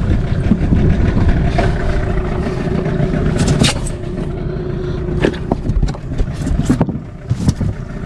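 A boat's motor rumbling steadily with wind on the microphone; its hum fades out about five seconds in. Several sharp knocks and a scrape come from gear handled aboard.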